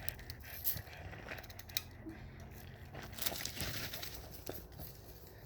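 Faint rustling with scattered small clicks and crackles, with no loud shot or impact among them.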